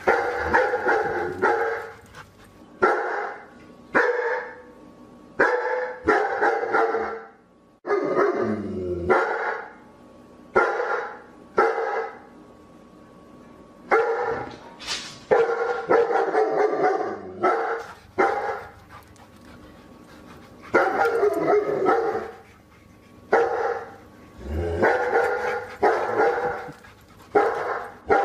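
Dog barking repeatedly in short, irregular bursts, with one longer call that falls in pitch about eight seconds in.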